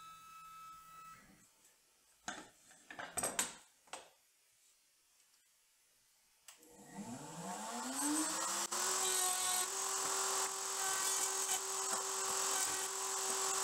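The SHARK RS1000 Pro's motorized fence and lift whine briefly for about a second as the CNC repositions for the next dado cut, and a few knocks of boards being handled follow. About six and a half seconds in, the router motor switches on, winds up with a rising whine and then runs steadily at full speed.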